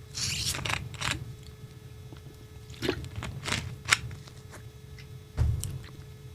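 A few short clicks and rustles, a cluster in the first second and more around three to four seconds in, then a dull thump about five and a half seconds in, over a low steady hum.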